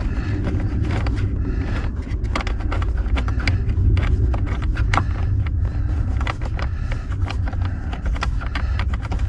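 Small scattered clicks and scrapes from a hand turning off the loose mounting nuts of a car's accelerator pedal assembly, over a steady low rumble.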